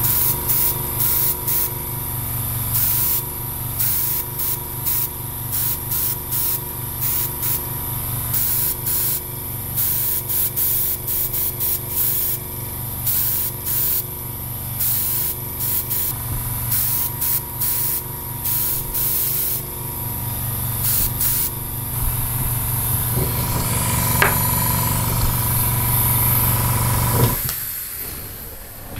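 Hand airbrush spraying suede paint, hissing in many short repeated bursts over a steady hum. Near the end the spray runs continuously for a few seconds, then everything stops just before the end.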